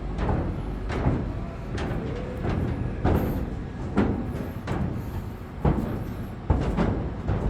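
Construction-site machinery running with a steady low rumble, with repeated knocks and clanks coming about once or twice a second.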